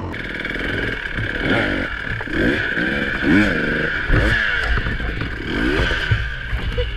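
Dirt bike engine revving up and down again and again, the revs rising and falling about once a second.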